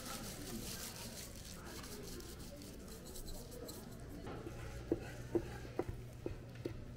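Soft rubbing and rustling of a bamboo mat and plastic-gloved hands rolling kimbap. From about five seconds in, a knife chops boiled pig offal on a wooden cutting board: about six sharp knocks, roughly half a second apart.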